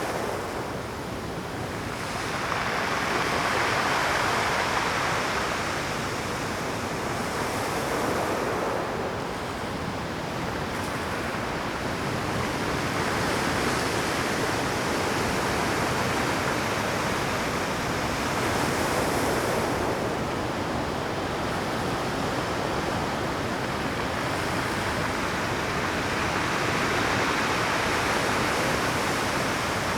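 Rough Pacific surf breaking on a rocky shore: a continuous rushing wash that swells with each incoming wave every few seconds.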